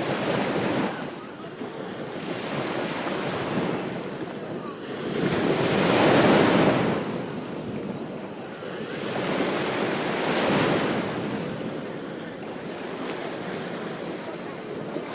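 Ocean waves breaking on a beach, the surf swelling and washing back in slow surges every few seconds, the loudest about six seconds in. Wind buffets the microphone.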